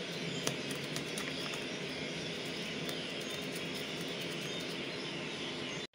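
A metal scaler scrapes the scales off a large tongkol tuna in a stainless-steel sink: light scratchy ticks over a steady background hiss, with one sharper click about half a second in.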